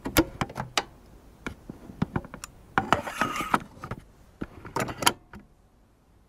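Intro sound effects: a quick, uneven series of sharp mechanical clicks and clacks, with a short rushing noise about three seconds in. The clicks stop about five and a half seconds in.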